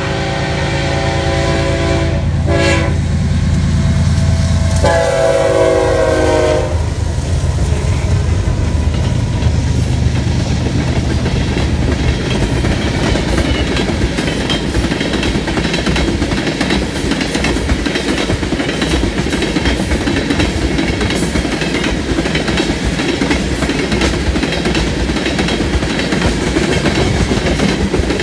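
Freight train's diesel locomotive horn sounding one long blast, then a second blast about five seconds in, over the low rumble of the passing locomotives. After that comes the steady clickety-clack of a long string of tank cars rolling past on jointed rail.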